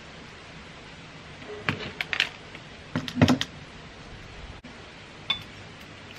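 Light clinks and knocks of a glass mirror pane being handled, in two short clusters about two and three seconds in, followed by one more click about five seconds in.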